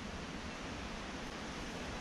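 Steady, even outdoor background hiss of wind and rustling leaves in the surrounding trees.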